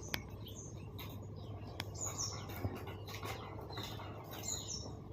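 Small birds chirping: many short, quick chirps repeating throughout, over a steady low background hum, with a sharp click shortly after the start.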